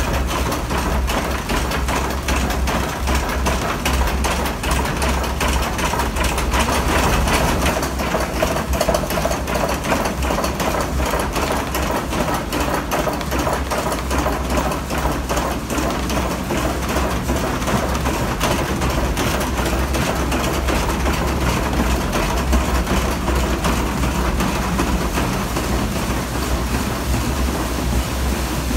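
Water-powered wooden gristmill machinery running: wooden cog wheels, lantern gears and millstones turning with a steady rumbling clatter.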